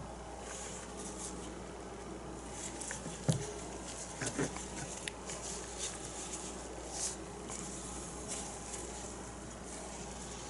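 Quiet handling noise as a painted canvas is worked: soft rustles and scattered light ticks, with two soft knocks between three and four and a half seconds in, over a low steady room hum.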